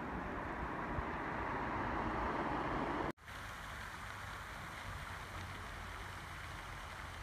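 Steady rushing outdoor background noise that drops out for an instant about three seconds in, then goes on as a quieter, even hiss with a faint steady high tone.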